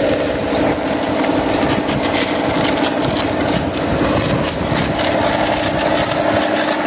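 Motorcycle-wash water pump running with a steady, raspy mechanical drone while its hose jet sprays water onto the bike.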